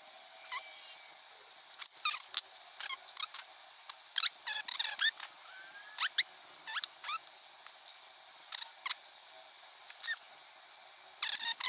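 Irregular light clicks, taps and short squeaks of small hand-tool work: a screwdriver turning small screws into a model tractor's metal frame, with small metal parts and tools being handled.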